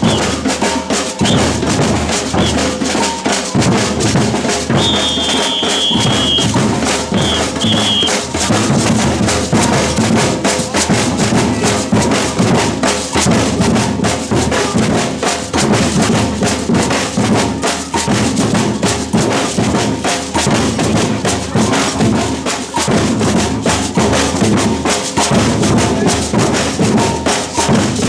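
Batucada samba percussion ensemble playing a loud, dense, steady rhythm on bass drums, snares and other hand percussion. A high whistle blast sounds about five seconds in, followed by two short ones.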